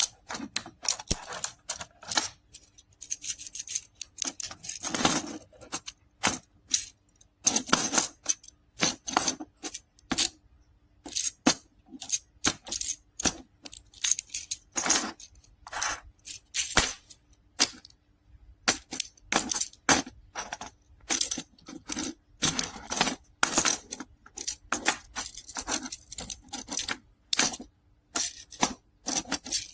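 Small magnetic building cubes clicking and clattering together as they are handled and snapped into place: a rapid, irregular run of sharp clicks.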